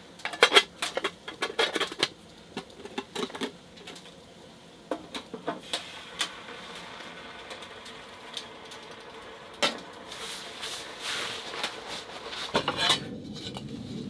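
Cookware and utensils clinking and knocking as they are handled, dense at first and then sparser over a faint steady hum, with a stretch of soft hiss near the end.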